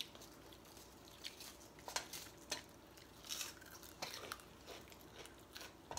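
Faint eating sounds: chewing and biting, with scattered soft clicks and taps of plates and cutlery.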